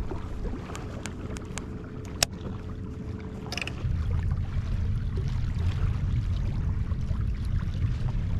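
Water lapping against a small boat's hull with wind rumbling on the microphone, getting louder about four seconds in. A few light clicks and one sharper tick come in the first couple of seconds, with a short scrape about three and a half seconds in.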